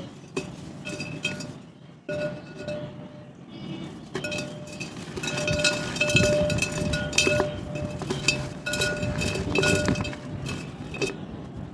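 Dry mud and clay-pot shapes crumbling, a dense run of crunches and cracks with pieces clinking together, getting louder and busier about five seconds in.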